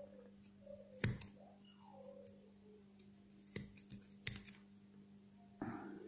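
A few sharp clicks and taps, one about a second in and a quick cluster of four around four seconds in, as fingers work paper masking tape on a small metal sewing-machine bobbin. A short rustle follows near the end.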